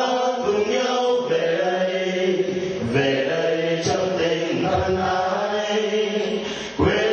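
A group of people singing together in unison from song sheets, in long held notes.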